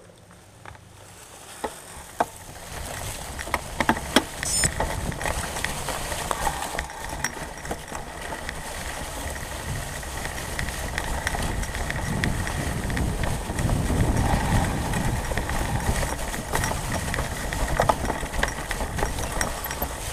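Fat-tyre mountain bike rolling along a trail covered in dry leaves, its knobby tyres crunching through the leaves over a low rumble, with scattered sharp clicks and rattles. It builds from quiet over the first few seconds as the bike gets going again.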